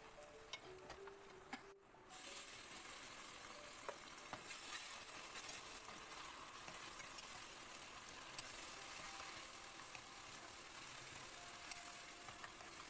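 Sliced onions and tomatoes sizzling in hot oil in a metal wok, stirred with a steel ladle that gives occasional light clicks and scrapes against the pan. The steady sizzle comes up suddenly about two seconds in.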